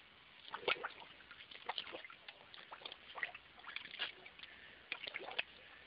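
Water splashing in a bucket in a run of short, irregular splashes, as a dachshund snaps at a live fish in it, trying to catch it.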